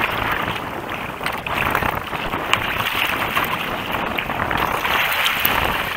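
Choppy, wind-driven water slapping and splashing against a kayak's bow in a rough chop, with wind buffeting the microphone. The splashing comes as a steady rush broken by many small slaps.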